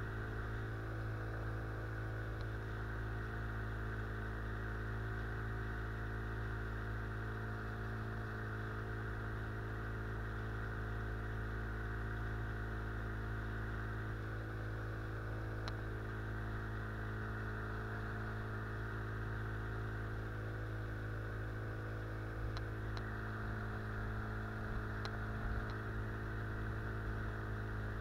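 Outboard motor running at a steady, unchanging speed, pushing the boat along, with a few faint ticks in the second half.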